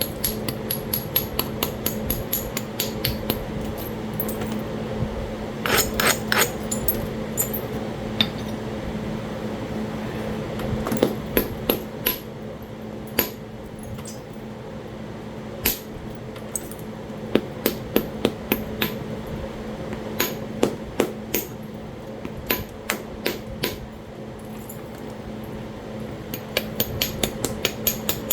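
Stone clicking and tapping on Talahata quartzite during flintknapping: many short, sharp clicks coming in clusters as the edge is worked. A steady low hum runs underneath.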